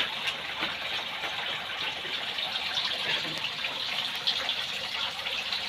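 Steady hiss of light rain, with the patter of scattered drops.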